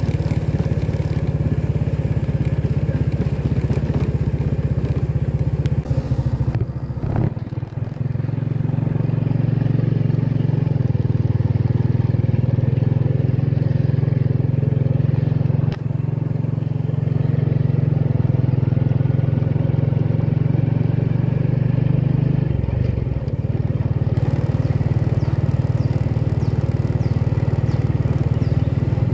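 Motorcycle engine running steadily while riding along at a constant pace. Its note changes briefly twice, about seven seconds in and again around twenty-three seconds in.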